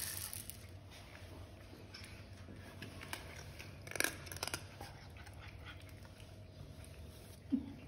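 Cats eating dry kibble: faint crunching and chewing, with a few sharper crunches about four seconds in.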